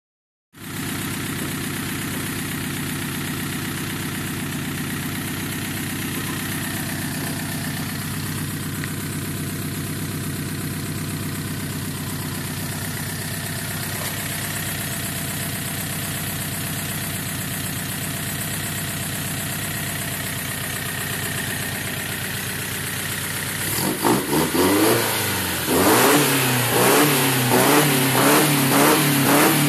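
Car engine running out of the car on a test stand, idling steadily. Near the end it is blipped a few times at the throttle, then held at higher revs that waver up and down.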